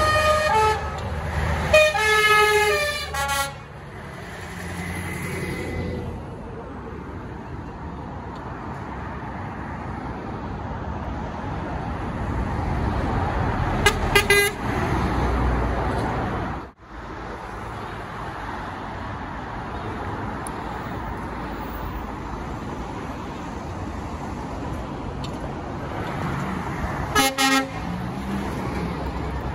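Trucks passing on the road and sounding their horns: a string of horn notes that change pitch in the first few seconds, then short toots about fourteen seconds in and again near the end, over the steady noise of passing engines and tyres. The sound cuts out for an instant about seventeen seconds in.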